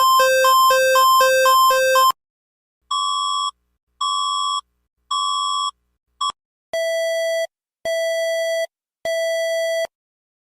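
Electronic emergency alert tones: a rapidly alternating two-pitch warble that cuts off about two seconds in, then three short evenly spaced beeps, a brief blip, and three longer, lower-pitched beeps.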